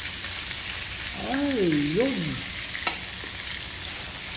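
Breaded torsilyo fish deep-frying in hot pork lard in a wok, a steady sizzle, as they are turned with metal tongs. A brief wavering hum rises and falls about a second in, and there is a single sharp click near the three-second mark.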